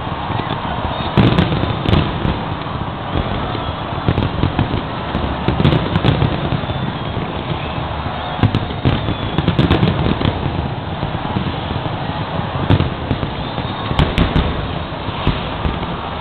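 Big aerial fireworks display: a dense, unbroken barrage of shells booming and crackling, with sharp bursts standing out every second or two.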